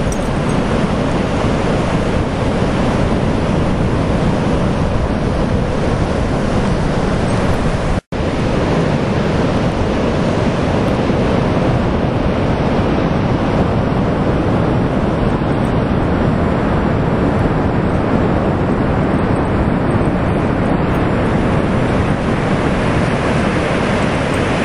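Ocean surf breaking in a steady roar, with wind rumbling on the microphone. The sound cuts out for a split second about eight seconds in.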